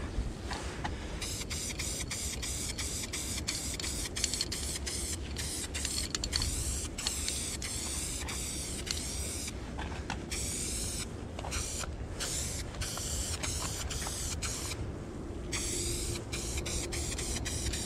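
Aerosol spray paint can hissing in long bursts with a few short breaks, laying a thin white undercoat for a yellow fill.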